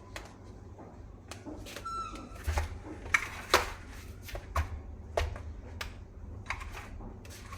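Sharp clicks and knocks of plastic toy-rifle parts and packaging being handled, with a short squeak about two seconds in.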